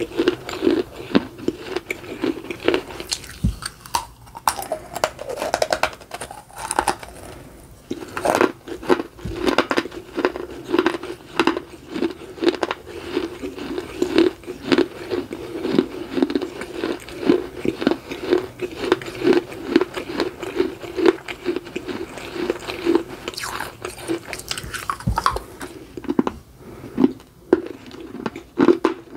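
Close-up crunching and chewing of dry clay: pieces of a miniature clay pot are bitten off and chewed. Sharp crunches come thick and fast, settling into a steady chewing rhythm of about two crunches a second through the middle.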